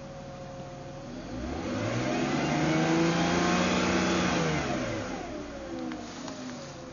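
An engine idling, then revved up about a second in, held high for a few seconds, and let fall back to idle near the end.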